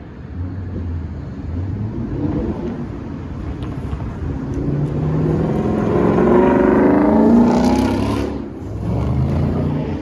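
A heavy vehicle's engine rumble passing close by. It grows steadily louder to a peak about seven seconds in, drops off abruptly, then picks back up.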